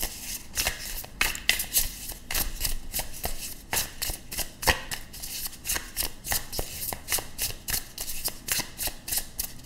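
A tarot deck being shuffled by hand: the cards slap against each other in a quick, uneven run of clicks, several a second.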